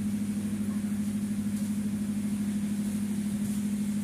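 Wooden passenger boat's engine idling, a steady low hum with an even pulse.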